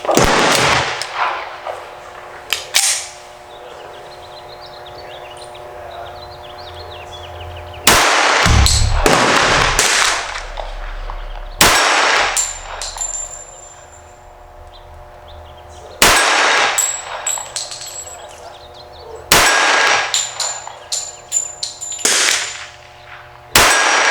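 Sig Sauer TTT 1911 pistol in .45 ACP fired in single shots a few seconds apart, each hit on the steel plate targets answered by a ringing metallic clang.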